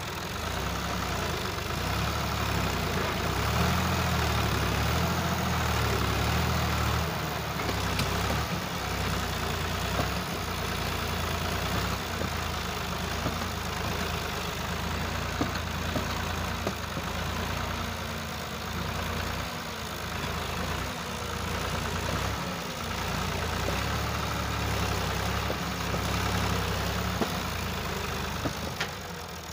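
Millat 260 Turbo tractor's three-cylinder diesel engine running while hitched to a trolley loaded with sand, a steady low drone that swells and eases in loudness, louder for the first several seconds and again a little before the end.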